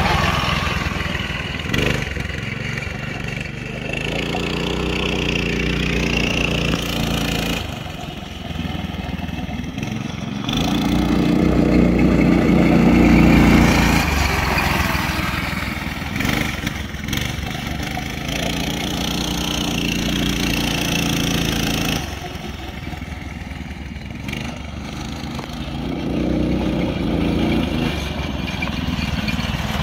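Coleman KT196 go-kart's 196cc single-cylinder engine running as the kart drives around a dirt track, its pitch rising and falling with the throttle. It is loudest about a third of the way through.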